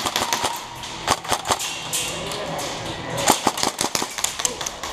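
Airsoft guns firing as sharp cracks, single shots and quick strings, with a dense cluster about three to four seconds in.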